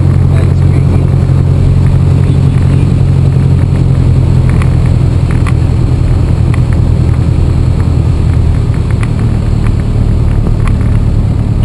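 Piper PA-28's single piston engine and propeller droning steadily at low power during the landing rollout, heard from inside the cockpit; the drone drops a little about eight and a half seconds in.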